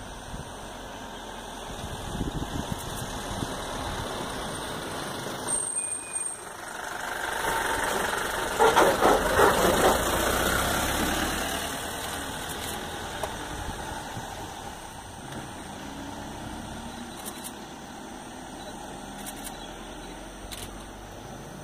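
Safari vehicle's engine idling, swelling louder for a few seconds near the middle before settling back to a steady running sound.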